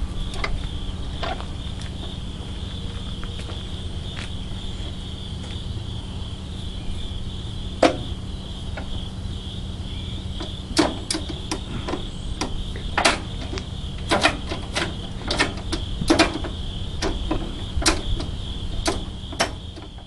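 Steady high chirring of insects, with a low steady hum underneath. Sharp clicks and knocks come now and then, more often in the second half.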